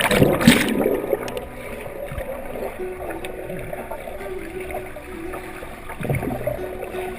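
A person plunging into a pond with a loud splash in the first second, followed by water sloshing and gurgling around them, which swells again near the end.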